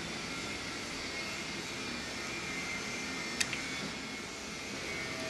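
Steady workshop background noise, with one sharp click about three and a half seconds in as small pliers pull a wire free of an old multi-pin connector from a Leopard tank's wiring loom.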